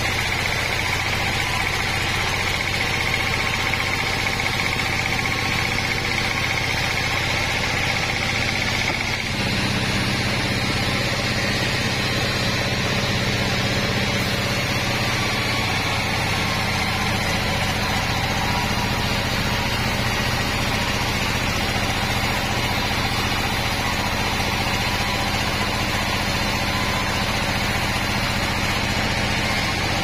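Large band sawmill running steadily while sawing Wadang timber, its blade and drive making a continuous machine drone. A high whine in the first few seconds drops away about nine seconds in.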